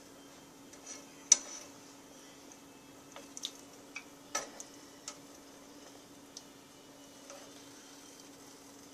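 Scattered clicks and taps of a utensil against a frying pan as chicken pieces simmering in coconut milk are turned over, the loudest about a second and a half in. A faint steady hum runs underneath.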